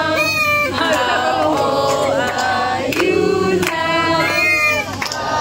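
A group of voices singing a birthday song together, with hands clapping along.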